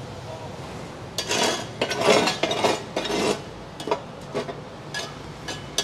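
Metal clinking and clattering as a stick-welding electrode holder and steel pieces are handled on a bench: a run of quick clinks and scrapes about a second in, then a few lighter ticks.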